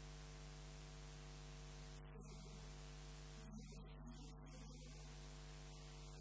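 Steady electrical mains hum, a low buzz with a ladder of higher overtones, under a faint voice.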